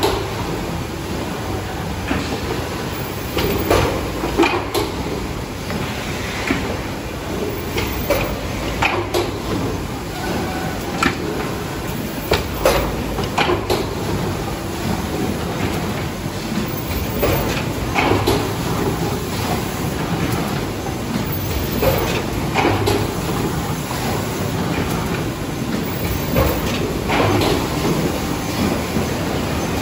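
Automatic rigid box making machine running: a steady mechanical hum with irregular clacks and knocks from its moving parts every second or two.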